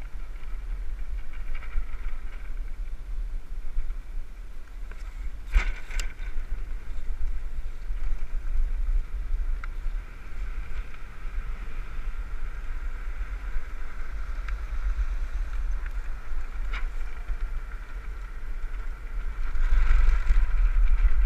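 Wind buffeting the onboard microphone of a land yacht sailing across hard beach sand, with a steady higher whine under the rumble. A couple of sharp knocks come about six seconds in, and the noise grows louder near the end.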